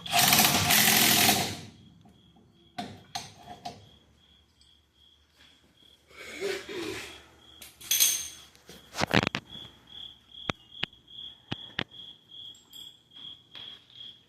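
Mechanic's tools at work on a car's rear wheel hub: a loud rush of noise lasting under two seconds at the start, then scattered sharp metal clicks and knocks. A faint high pulsing tone, about three pulses a second, runs through the second half.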